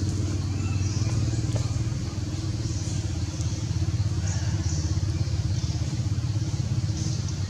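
An engine idling with a steady low drone that does not change.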